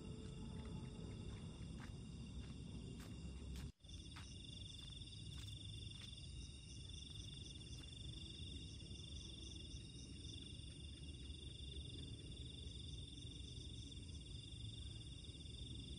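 Night insects calling in a steady, high chorus over a low background rumble. The sound breaks off for a moment about four seconds in, then carries on unchanged.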